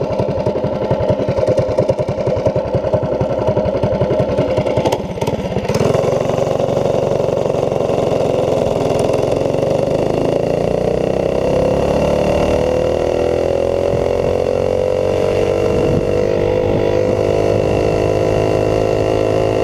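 Predator 212 single-cylinder four-stroke engine on a Doodlebug mini bike idling with a steady beat, then at full throttle from about six seconds in, its note climbing steadily for several seconds before levelling off near top speed. The owner says it is running rich up top, spitting with a fouled plug or a jet that is too big.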